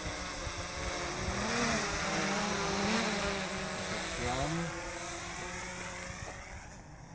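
DJI quadcopter drone flying close by, its propellers giving a buzzing whine whose pitch rises and falls as the motors speed up and slow down while it manoeuvres. The sound is loudest in the middle and fades near the end.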